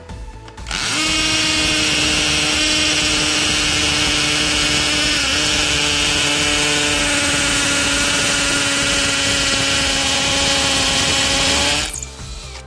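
Cordless drill running steadily at full speed while boring into concrete. The motor's steady whine dips in pitch briefly midway under load, and the drill starts about a second in and stops near the end.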